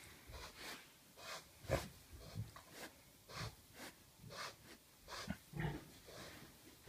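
Pot-bellied pig chewing an apple and snuffling, a steady run of short crunching sounds about twice a second.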